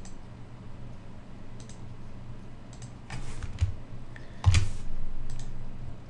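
A few scattered keystrokes on a computer keyboard, with a louder key or click about four and a half seconds in, over a faint steady low hum.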